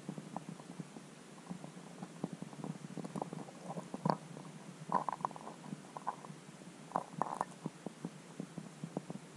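Irregular soft clicks and knocks heard underwater through a submerged camera, over a low steady hum, with a few louder knocks about four, five and seven seconds in.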